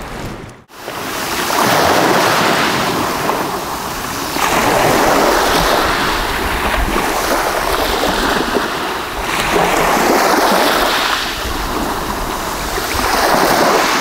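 Small sea waves breaking and washing up over a pebble beach, surging and ebbing every two to three seconds.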